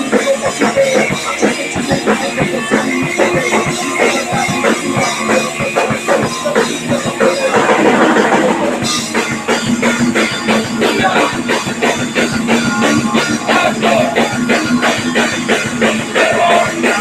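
Live punk rock band playing loud: electric guitar, bass and a drum kit hit in a fast, steady beat, with a cymbal wash swelling briefly about halfway through.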